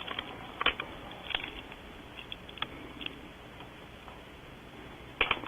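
Scattered irregular clicks and taps of dry owl pellets and nest debris being handled by hand inside a barn owl nest cavity.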